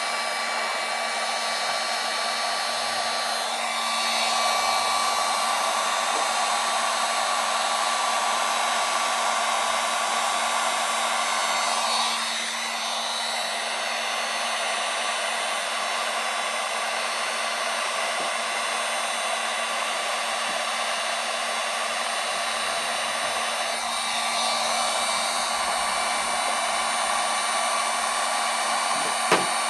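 Electric heat gun blowing steadily, its fan and motor giving a constant hiss with a steady hum, as it heats the aluminium panel to help pull the dent. The level rises and dips slightly a few times, and there is a single short click near the end.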